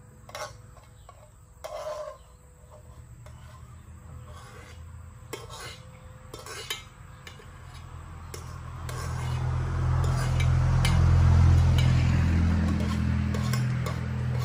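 Metal clinks and scraping from a stainless steel pot as dog food is scooped out of it into a bowl, the scraping thickest in the second half. A louder low rumble swells from about nine seconds in and eases off near the end.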